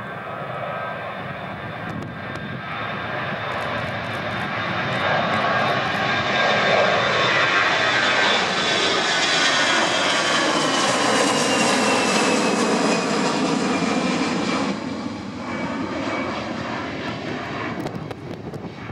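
Airbus A320-200 jet engines at takeoff power as the airliner lifts off and climbs past: the noise swells to its loudest around the middle, with a high whine sliding down in pitch as it goes by, then drops off and fades as it climbs away.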